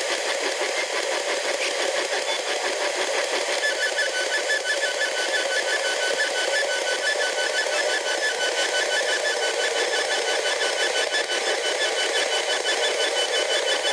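P-SB11 spirit box sweeping through radio stations: a steady hiss of radio static, rapidly chopped by the sweep. About four seconds in, a fast, high, beeping pulse joins it and carries on.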